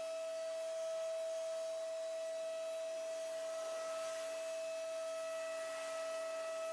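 DATRON M8Cube high-speed milling spindle running with a steady high-pitched whine, with a faint hiss of cutting that swells briefly around the middle and again near the end.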